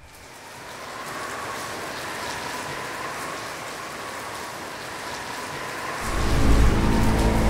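Heavy rain: a steady, even hiss of rainfall. About six seconds in, music with low, sustained notes comes in loud over it.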